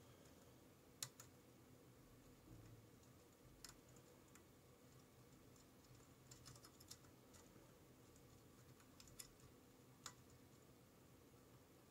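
Faint, scattered clicks of a steel lock pick working the pins of a Keso 2000S high-security cylinder under tension, single-pin picking. A sharper click comes right at the end as the plug turns and the lock opens.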